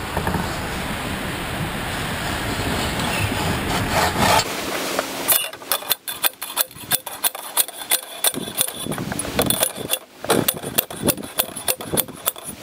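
Manual post driver pounding a steel T-post into the ground, about two sharp metallic strikes a second with a ringing after each, beginning about five seconds in. Before the strikes there is a steady rushing noise.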